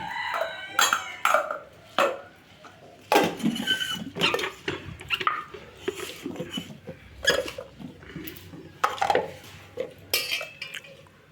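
Stainless steel mixer grinder jars and lids being handled, giving irregular metal clinks and knocks, some with a short ringing tone.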